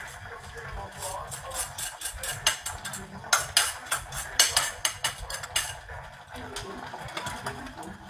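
Clatter of kitchen utensils and dishes being handled at a counter: a run of sharp clicks and knocks, thickest from about three to six seconds in.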